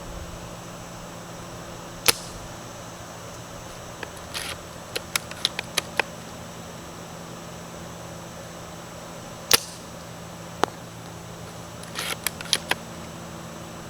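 JG Bar-10 spring-powered bolt-action airsoft sniper rifle, fitted with a Laylax SP190 spring, firing single shots. Each shot is a sharp snap, the two loudest about 2 and 9.5 seconds in, and runs of quick clicks in between are the bolt being cycled.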